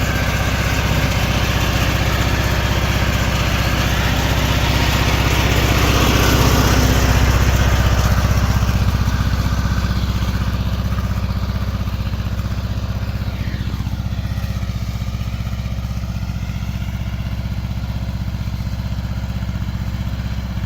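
Riding lawn mower engine running steadily while driving along a trail, getting louder around six to eight seconds in and then easing off a little.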